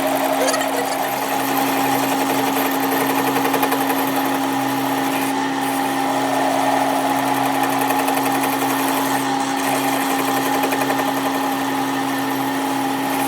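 A workshop machine or power tool running steadily with a constant hum.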